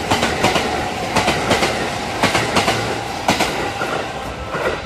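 Kintetsu limited-express electric train passing at speed, its wheels clicking over the rail joints, the clicks often coming in quick pairs over a steady running noise.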